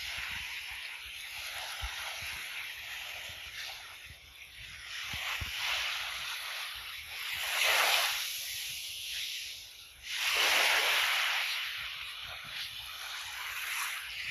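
Small waves washing up onto a sandy beach as a soft, steady hiss, swelling loudest twice, a little before the middle and again a few seconds later.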